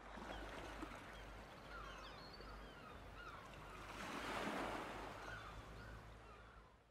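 Outdoor seaside ambience: waves and wind with many short bird calls chirping over them. It swells about four seconds in, then fades out at the end.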